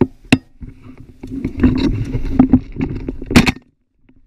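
Rumbling, scraping handling noise with a few sharp knocks, the loudest near the start and about three seconds in.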